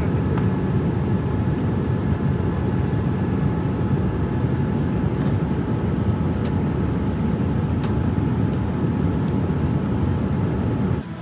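Steady low rumble of cabin noise inside a Boeing 787-10 airliner, with a few faint steady tones above it; it cuts off suddenly near the end.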